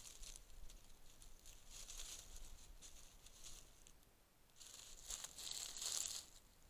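Raccoon walking and foraging through dry leaf litter, its footsteps rustling and crunching the leaves in soft scattered bursts, loudest for a couple of seconds near the end.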